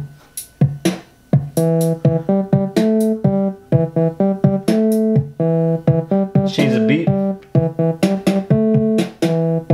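Hocokiki honeycomb music kit playing its looped beats through a portable speaker: a drum pattern of short hits, joined about a second and a half in by a repeating pitched riff as another button module is triggered.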